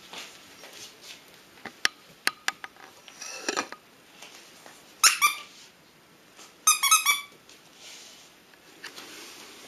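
Puppy play on a tile floor: light clicks and taps, then short high-pitched squeaks in three bursts, about three and a half, five and seven seconds in, the last a quick run of several squeaks.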